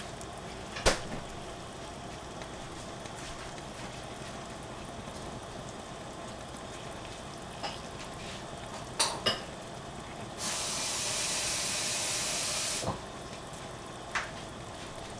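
Pots cooking on a gas stove, with a sharp clink of cookware about a second in and a few more clicks about nine seconds in. Then a steady spraying hiss starts about ten seconds in and cuts off sharply some two and a half seconds later.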